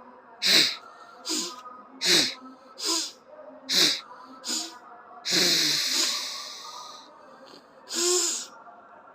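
A person sneezing forcefully through the nose in a rhythmic series: six short, sharp bursts of air a little under a second apart, then a longer blast lasting over a second, and one more burst near the end. The sneezing follows jal neti, the nose being cleared of leftover rinse water.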